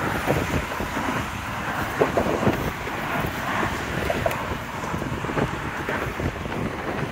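Road traffic running steadily on a highway bridge, with wind buffeting the microphone.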